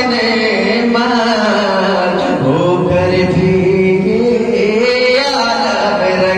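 A man's solo voice chanting a naat into a microphone, holding long melodic notes that slide and waver in pitch.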